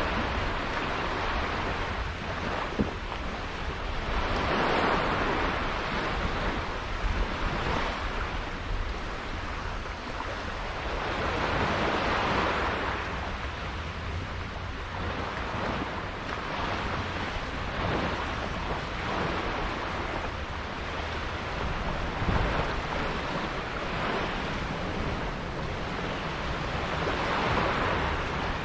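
Sea water washing and surging, swelling and fading several times, over a steady low rumble of wind buffeting the microphone.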